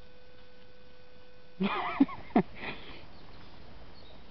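German shepherd giving a brief wavering whine with two short sharp huffs, about a second and a half in, while digging in a hole.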